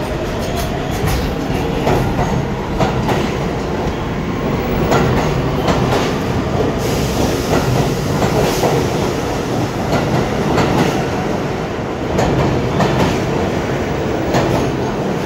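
R46 subway cars of a departing train running past at close range: a steady loud rumble broken by quick clicks as the wheels cross rail joints.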